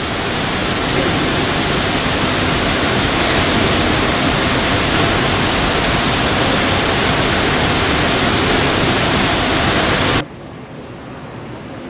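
Loud, steady hiss of even noise with no tone or rhythm in it, which cuts off abruptly about ten seconds in, leaving a much fainter hiss.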